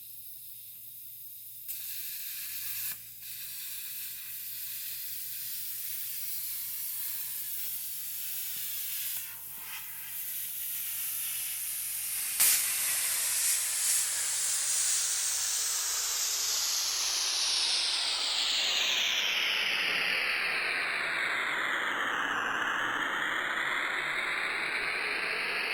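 A rushing hiss that grows louder, with a sweeping sound that falls in pitch, bottoms out near the end and rises again. A few sharp knocks come in the first half, the loudest about halfway through.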